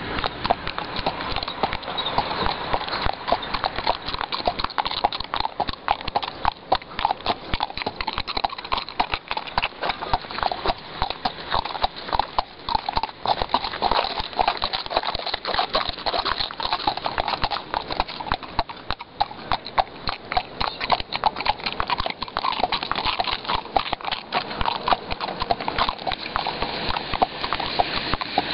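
Hooves of two horses clip-clopping steadily on an asphalt road, their strikes overlapping in a constant clatter.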